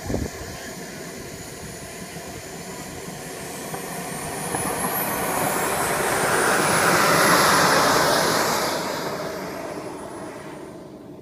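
Small gas-turbine engine of a radio-controlled scale Tutor jet whining with a high whistle during takeoff, growing louder as it passes to a peak about seven seconds in, the whistle rising and then dropping in pitch as it goes by and fades away.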